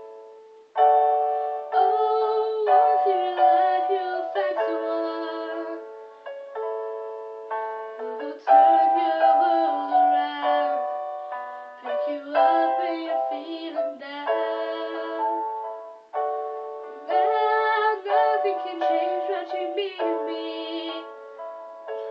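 Slow instrumental accompaniment: chords struck every second or so and left to fade, with a few short breaks between phrases.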